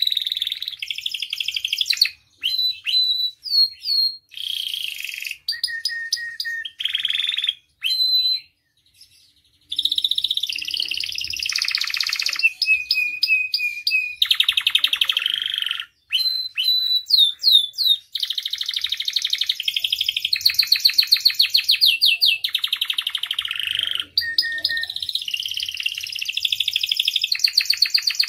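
Domestic canary singing a long song of varied phrases: whistled notes, chirps and fast rolling trills, with one brief pause about nine seconds in.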